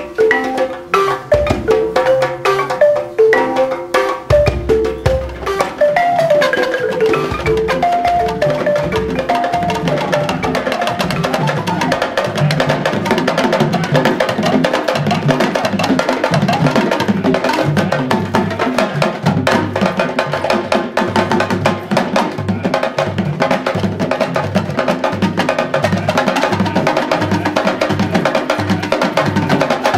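West African music on balafon and drums: runs of distinct wooden xylophone notes over low drum strokes, settling about six seconds in into a dense, steady rhythm of mallet strikes and drumming.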